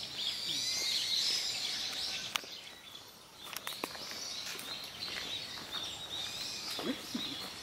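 Many small birds chirping and twittering at once in the trees, the calls thinning briefly a little before halfway and then picking up again. A few sharp clicks stand out, about two and a half and four seconds in.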